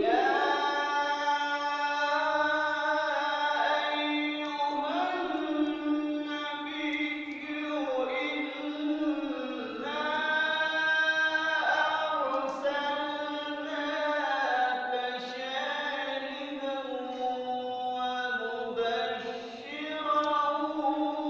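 A man's voice chanting solo and unaccompanied into a microphone, in long held notes that bend up and down. It begins suddenly at the start.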